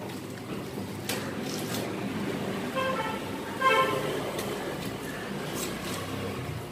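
Two short vehicle-horn toots about three and four seconds in, the second louder, over a steady engine hum.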